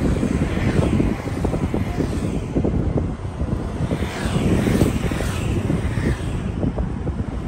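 Steady low rumble of a moving vehicle, with uneven buffeting noise.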